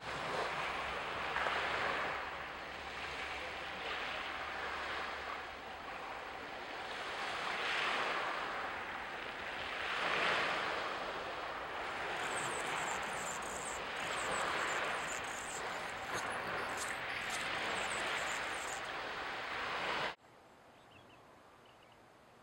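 Male Anna's hummingbird singing a high, broken chattering song for several seconds about halfway through. Under it is a rushing background noise that swells and fades every few seconds and drops away abruptly near the end.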